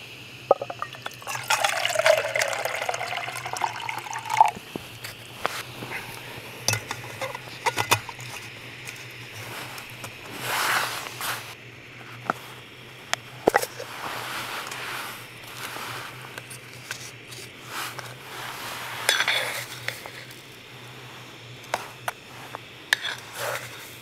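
Hot water poured from a Primus cooking pot into a cup for about three seconds, starting a second and a half in, its pitch climbing as the cup fills. Then scattered clicks, taps and scrapes of a metal coffee tin's plastic lid being worked open and a spoon scooping instant coffee.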